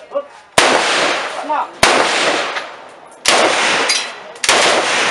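AK-47 assault rifle (7.62×39mm) fired single shot by single shot: four sharp cracks about a second and a quarter apart, each trailing off in a long echo.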